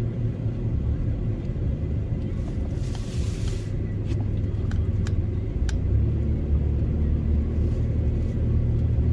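Truck engine and road noise heard from inside the cab while driving: a steady low hum that grows a little louder about six seconds in, with a brief hiss about three seconds in and a few faint clicks.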